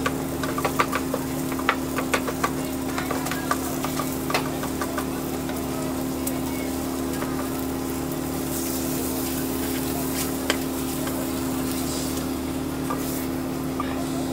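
Spatula clicking and scraping against a rectangular tamagoyaki pan as the rolled egg omelette is turned over a gas burner, with light sizzling. The clicks come thickest in the first few seconds, over a steady hum.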